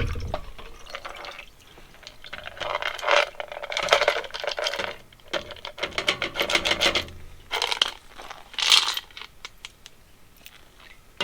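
Small metal carburetor parts clinking and scraping as they are handled and cleaned, in a few spells of scratchy, clicking noise.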